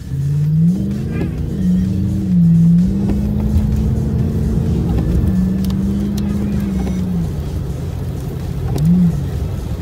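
A car driving on a wet road, heard from inside the cabin: a steady low road rumble with an engine hum. The hum rises in pitch as the car pulls away in the first second, dips and climbs again a couple of seconds in, then drops lower near the end.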